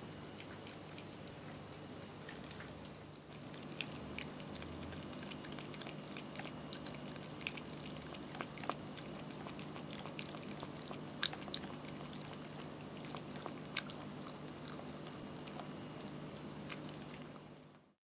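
Cat lapping water at an electric pet drinking fountain: quick, irregular wet clicks of the tongue, coming thicker from about four seconds in, over the steady hum of the fountain's pump.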